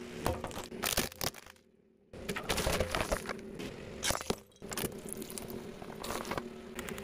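A car tyre rolling over and crushing brittle objects, a plastic toy and a ceramic plate of candies: a run of sharp cracks and crunching, broken by a short silence about two seconds in. A low steady engine hum runs underneath.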